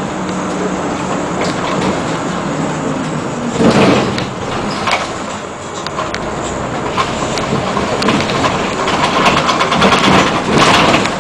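Interior of a city bus driving through traffic: engine and road noise with cabin rattles, swelling louder about four seconds in and again near the end.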